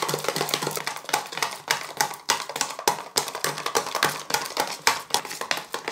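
Small wire whisk beating a thick paste of coffee powder, sugar and a little water in a plastic bowl: rapid, irregular clicks and scrapes as the wires hit the bowl. The mixture is being whipped until the sugar dissolves and it turns creamy.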